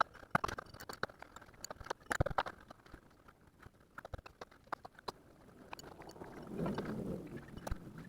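Irregular small clicks and light knocks, scattered through, with a brief low rumbling sound about seven seconds in.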